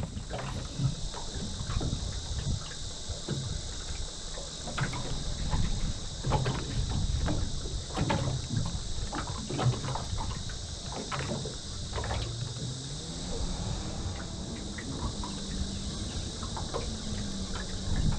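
Steady high-pitched insect chorus, with scattered light knocks and clicks of fishing gear being handled in an aluminium dinghy and a gusty low rumble of wind on the microphone.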